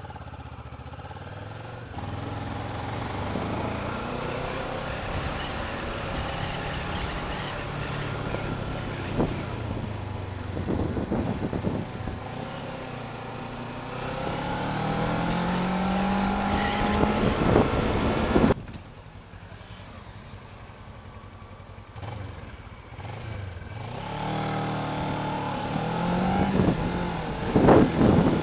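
Kawasaki ER-6f motorcycle's parallel-twin engine pulling away and accelerating, its pitch climbing in long rising sweeps, over steady wind noise. The sound drops off suddenly about two-thirds of the way in, then builds again with another rising rev near the end.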